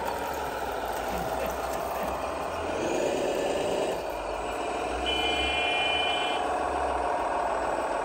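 Radio-controlled scale Caterpillar track loader running, with a steady, slightly wavering motor whine. About five seconds in, a high steady tone sounds for about a second and a half.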